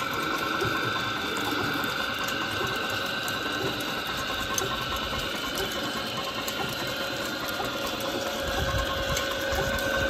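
Belt-driven wooden-tub washing machine running, its cast-iron cross agitator churning soapy water, with the steady clatter of the line-shaft pulleys and flat belt and a steady high whine.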